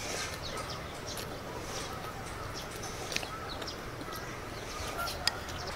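Close-up eating sounds: chewing and lip-smacking on braised goose meat and rice, with scattered sharp clicks, the sharpest about five seconds in. Faint bird chirps sit behind.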